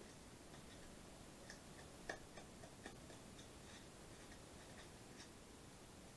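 Near silence: room tone, with a few faint light clicks and taps from handling a cardboard roll and craft materials, the clearest about two seconds in.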